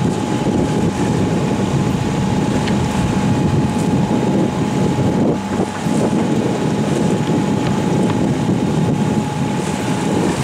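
Steady rumble of a boat's engine running, with wind buffeting the microphone and a faint steady whine over it.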